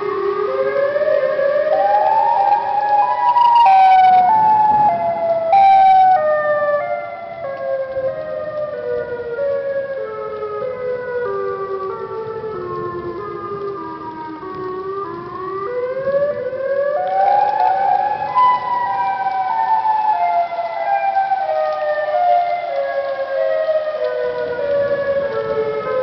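Chicago tornado siren sounding a wail: its pitch rises over a few seconds, then falls slowly in small steps, rises again about fifteen seconds in and starts falling once more. Two short noisy bursts come about four and six seconds in.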